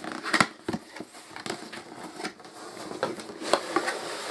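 Cardboard game box being opened by hand: the outer sleeve scraping and sliding off the inner box, with rustling and a few light knocks of cardboard.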